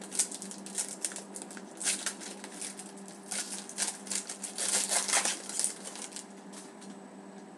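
A hockey card pack's wrapper crinkling and crackling in the hands as it is torn open and the cards slide out, a dense run of rustles that thins out near the end.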